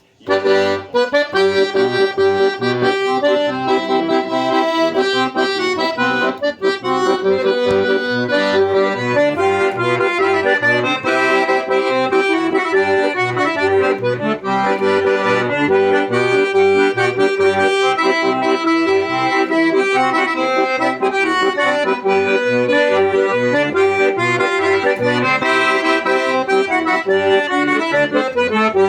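Accordion (sanfona) playing a lively tune, starting just after the first half second, with melody chords above an evenly pulsing bass accompaniment.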